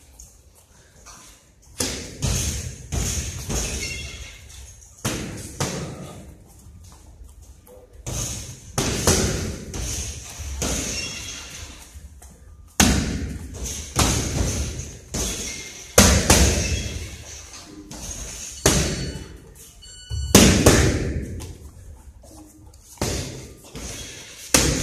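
Gloved punches landing on hand-held striking pads: a series of sharp, irregular thuds, often in quick runs of two or three, each trailing off with a short echo.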